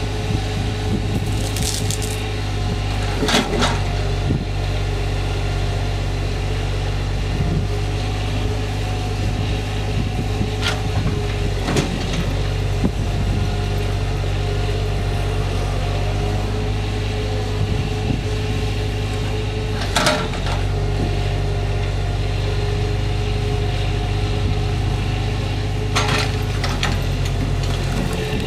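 Truck-mounted hydraulic log loader at work: an engine runs steadily with a wavering hydraulic whine over it, and several sharp knocks ring out as logs bang together in the grapple and on the load.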